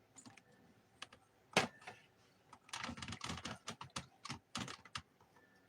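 A run of irregular light clicks and taps in quick clusters, with one sharper knock about one and a half seconds in.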